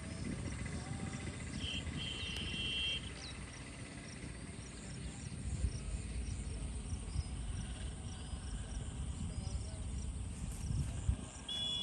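Insects chirping and trilling, with a high chirp repeating about twice a second and short buzzing tones, over a steady low rumble.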